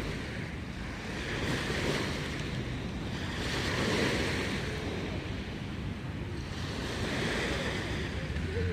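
Sea waves breaking and washing onto the shore, the hiss swelling three times, with wind rumbling on the microphone.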